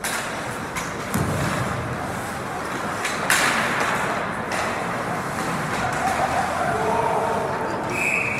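Ice hockey play in a rink: steady skating and crowd noise, a sharp crack about three seconds in as the puck or a stick hits the boards, and spectators shouting. A short referee's whistle blast near the end stops play as the goalie covers the puck.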